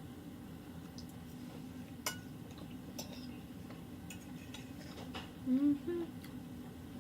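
Light clinks of a utensil against a dish, a few times, and a short hummed "mm" of enjoyment a little past halfway through, the loudest sound.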